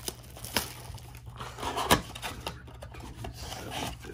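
Plastic shrink wrap rustling as it is peeled off a cardboard trading-card blaster box, then the box's flap being opened, with cardboard rubbing and a few sharp snaps; the loudest snap comes about two seconds in.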